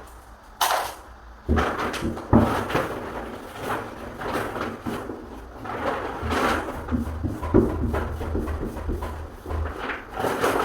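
Irregular knocks, bumps and scraping strokes from handwork on a wooden door or door frame.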